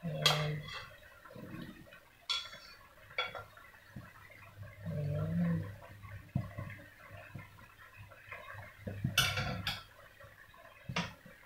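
Knife clinking and scraping against a plate as chopped vegetables are pushed off it into a pan. There are several sharp clinks, with a quick cluster of them about nine seconds in.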